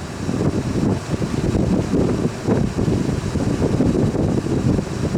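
Wind buffeting the camera microphone: a loud, gusty low rumble that swells and dips every second or so.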